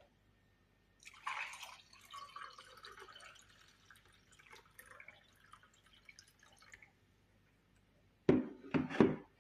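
Liquid pouring and dripping into a cup, faint and uneven for several seconds. Near the end, three or four short, loud knocks.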